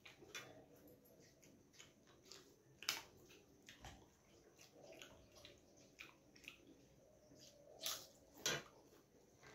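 Soft eating sounds of someone eating rice by hand from a steel thali: faint wet chewing and lip smacks with scattered small clicks, the sharpest one about three seconds in and two more near the end.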